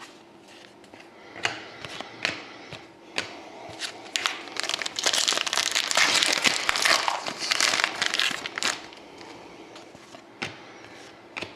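Trading-card pack wrapper crinkling as it is handled, torn open and crumpled, in a dense, loud stretch in the middle, with scattered light clicks from handling cards before and after.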